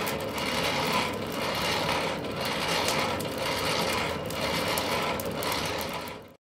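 Forge blower driving air through burning coals: a steady, whirring, mechanical rush that swells in repeated surges. It cuts off suddenly near the end.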